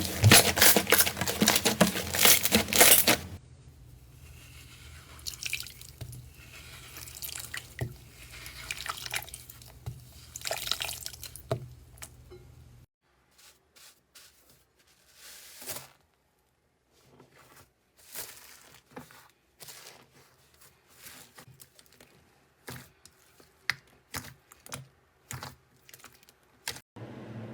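Slime being pressed and pulled by hand, giving a dense run of crunchy crackles for the first few seconds. This is followed by softer wet, sticky squelches, then scattered single clicks and pops.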